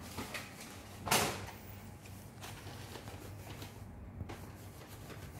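Light handling noises: a few soft clicks and knocks and one short scraping rustle about a second in, over a faint steady low hum.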